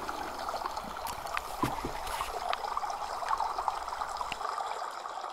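Running water of a small waterfall, trickling and splashing steadily with small sharp droplet plinks, starting to fade near the end.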